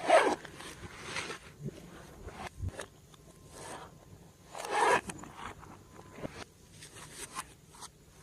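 Hands squishing and stretching glossy slime: sticky squelches and many small crackling pops, with two louder, longer squelches, one at the start and one about five seconds in.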